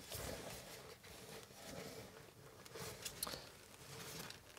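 Faint rubbing, scraping and small clicks of styrofoam packing as fingers tug at stepper motors wedged tight in their moulded foam tray.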